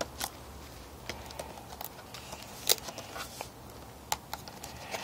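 Scattered light clicks and taps of handling, irregular, with one sharper click a little before the middle.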